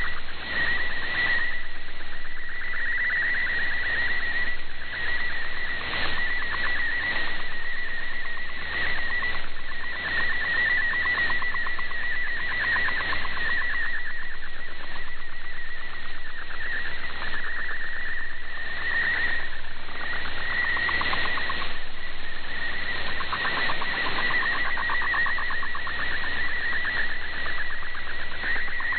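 MFSK64 digital-mode data signal received off shortwave: a rapid, steady warble of tones between about 1 and 2 kHz over radio static, carrying an image as it is being decoded.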